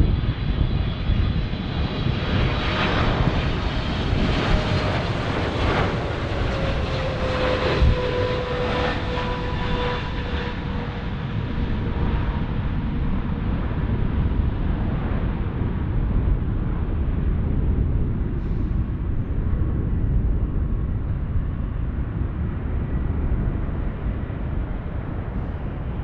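Boeing 777-300ER's twin GE90 turbofan engines on final approach and landing, a loud low rumble with a whine that drops in pitch as the jet passes, then a steadier, duller roar as it touches down. Gusty wind buffets the microphone.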